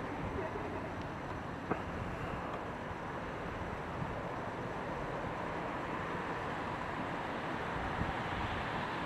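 Steady rushing hum of distant city traffic, with a sharp click a little under two seconds in.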